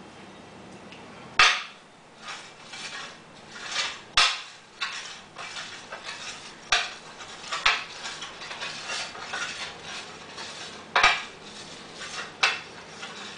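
Aluminum plate sliding and scraping over a glass sheet as a large neodymium magnet drags it from underneath, with about six sharp clinks of metal knocking on the glass.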